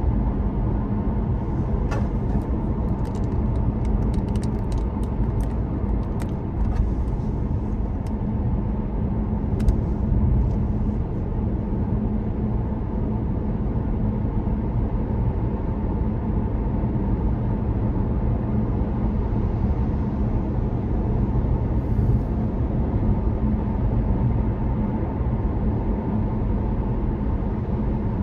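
Steady road noise inside a car cruising on a motorway: a low rumble of tyres and engine, with a few faint ticks in the first ten seconds or so.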